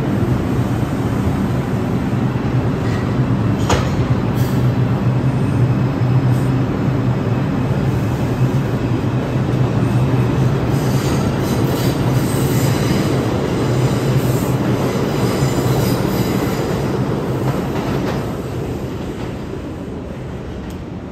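A New York City subway train of R142-series cars pulls out and accelerates away: a steady low motor hum over rumbling wheels, with one sharp clank about four seconds in and faint wheel squeal in the middle. The sound fades near the end as the train leaves.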